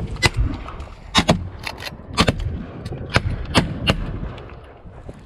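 Shotguns firing a rapid volley of about ten shots in the first four seconds, several guns going off close together, then it stops.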